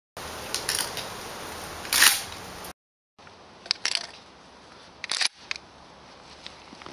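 Sharp metallic clicks and clacks of a Hawk Smartreloader 229 pump-action 12-gauge shotgun being handled and its pump forend worked. The loudest clack comes about two seconds in and a quick double clack about five seconds in, over a steady hiss.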